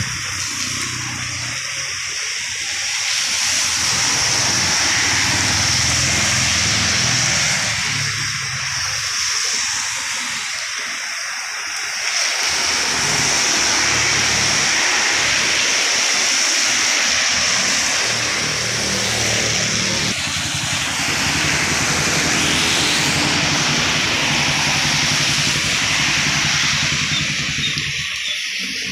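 Road traffic passing on a wet road: car engines and tyres hissing through water on the asphalt, swelling several times as vehicles go by, over a steady hiss.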